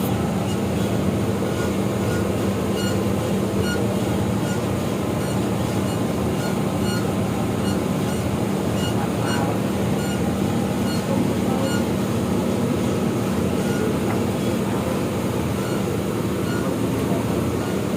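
40 kg industrial washing machine running under its new PLC control, its motor and drum giving a steady, even hum with faint regular ticking.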